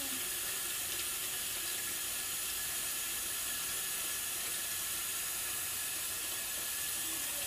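Tap water running steadily from a sink faucet into a plastic wash basin as it fills.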